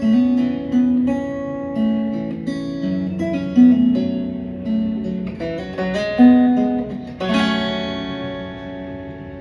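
Acoustic guitar picking single notes of the melody, then a chord strummed about seven seconds in that rings out and slowly fades.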